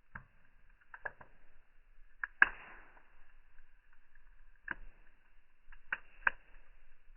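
Wood fire crackling in slow motion: scattered single pops and snaps, slowed down so they sound dull, with the loudest sharp pop about two and a half seconds in and two more close together near the end.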